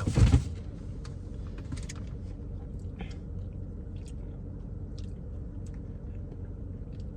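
A person chewing a mouthful of Blizzard with walnut and brownie pieces, with faint small crunches over a steady low hum.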